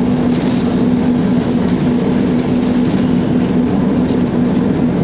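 Tatra T3 tram running with a steady droning hum over rolling noise, while another tram passes close alongside.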